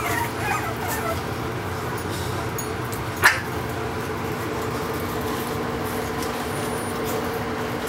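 Five-week-old Boston Terrier puppies whimpering briefly at the start, then one short sharp yip about three seconds in, the loudest sound here, over a steady low hum.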